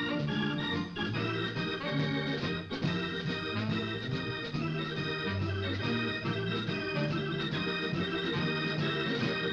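Instrumental music led by an organ, held chords over a bass line that steps from note to note.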